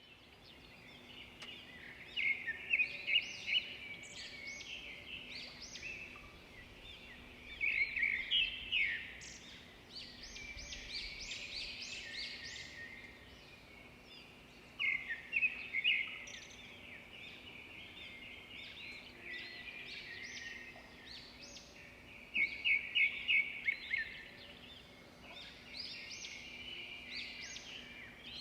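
Small birds chirping, with four louder bursts of rapid trilled notes spaced about five to seven seconds apart and softer chirps in between.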